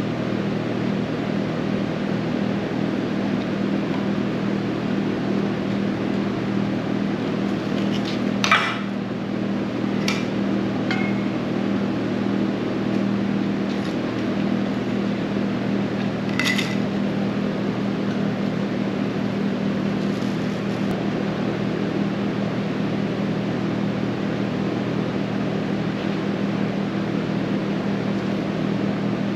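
Steady machine hum, like a running shop fan, with a few light clinks as abrasive cutoff discs are handled and set down on a steel table, the sharpest about a third and halfway through.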